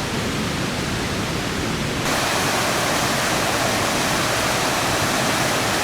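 Steady rushing of a mountain stream's water cascading through a gorge. About two seconds in it abruptly becomes louder and brighter.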